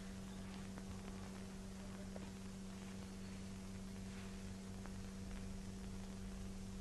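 Steady low electrical hum with faint hiss and a few faint ticks: background noise of an old film soundtrack, with no distinct sound event.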